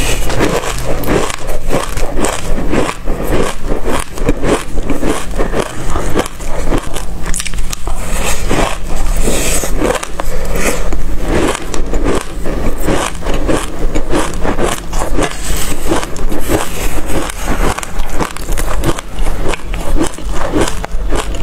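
Loud, close-up chewing of a mouthful of dry black seeds: a dense, fast, irregular crunching and crackling that goes on without a break.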